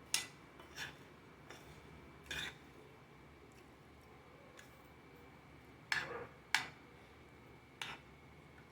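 Cutlery clinking and scraping against a plate during eating: about seven short, sharp clicks at uneven intervals, the loudest pair about six seconds in.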